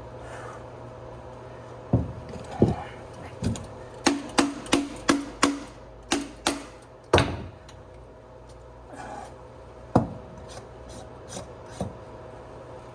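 A series of sharp knocks and clicks from PVC pipe and fittings being handled and knocked together. It includes a quick run of about six taps in a row, with the loudest knocks about seven and ten seconds in.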